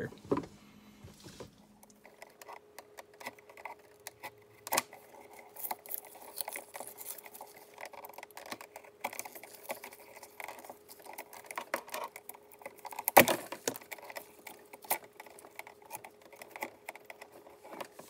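Utility knife blade scratching and slicing along the plastic sheathing of an electrical cable to strip it, with irregular small clicks and rustles of the cable being handled and one sharper click partway through.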